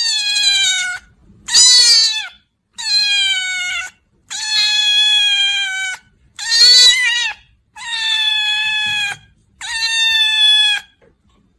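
A domestic cat meowing seven times in a row, each a long drawn-out meow of about a second that sags slightly in pitch at the end. The second and fifth meows are louder and shorter.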